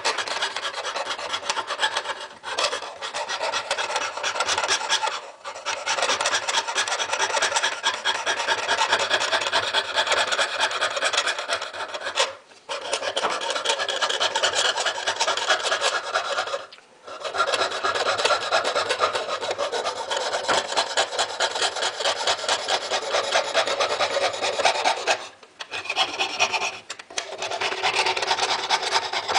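Jeweller's piercing saw cutting through silver sheet on a wooden bench pin: fast, even rasping strokes of the fine blade, stopping briefly about six times.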